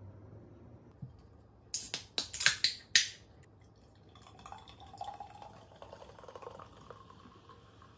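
Ginger ale poured from a can into a glass, fizzing as it fills, from about four seconds in. Before that, a couple of seconds in, a quick run of a few sharp cracks and hisses, the loudest sounds here.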